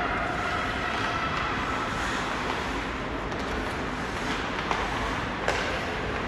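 Ice hockey rink sound: skate blades scraping and carving the ice in a steady hiss, with a couple of sharp clacks of sticks and puck about four and five and a half seconds in.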